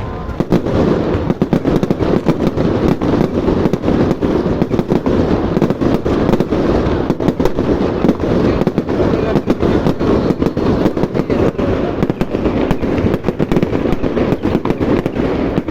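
Fireworks going off in a dense, rapid barrage of bangs and crackles without a break, starting abruptly at once.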